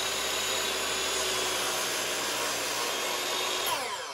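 DeWalt compound miter saw running at full speed, a steady motor whine, then spinning down with a falling pitch near the end once the trigger is released.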